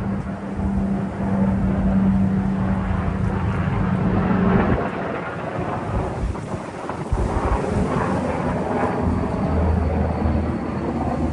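Strong wind buffeting the microphone in gusts, with a steady low hum underneath that stops about halfway through and a lower hum near the end.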